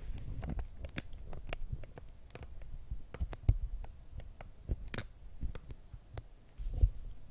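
Trading card boxes and packs handled on a table: an irregular run of clicks, taps and light knocks over low thumps, with two louder knocks about halfway and near the end.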